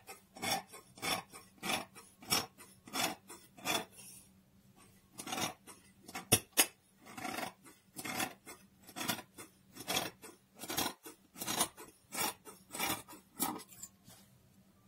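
Large dressmaking shears cutting through three stacked layers of organza and satin lining, in repeated snips about two a second, with a short pause about four seconds in and stopping just before the end.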